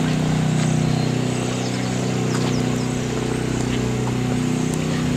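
A motor running steadily with a constant low hum, over an even rushing noise.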